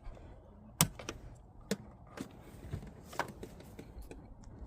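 A handful of sharp plastic clicks and taps from an ignition coil and its electrical connector being handled in the engine bay, the loudest about a second in.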